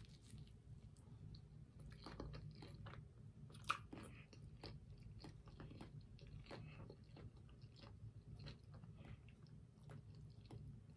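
Faint mouth sounds of chewing a toasted bacon and lettuce sandwich: a bite at the start, then soft, irregular crunching clicks, with one sharper click a little under four seconds in.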